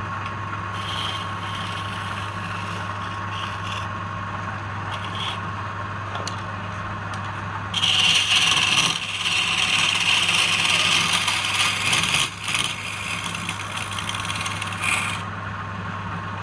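Wood lathe motor running with a steady hum while a tool or abrasive rubs and scrapes against the spinning wood in bursts. The loudest rasping comes about eight seconds in, lasts roughly four seconds, and a shorter burst follows near the end.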